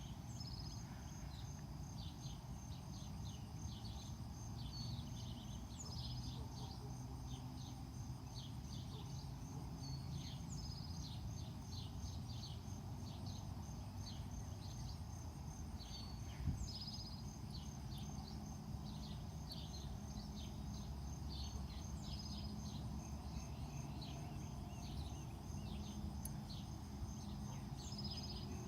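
A songbird repeats a short chirping phrase about every five seconds over a steady, pulsing high insect trill and a low background rumble. A single sharp click about halfway through.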